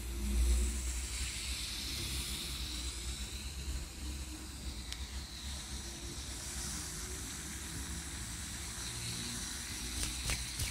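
Effervescent tablet drink fizzing in a glass held close to the microphone: a steady hiss of bubbles.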